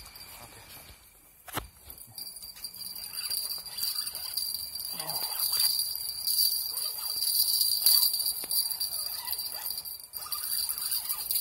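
Night insects, such as crickets, trilling steadily at a high pitch, with a sharp knock about a second and a half in and scattered handling knocks and rustles.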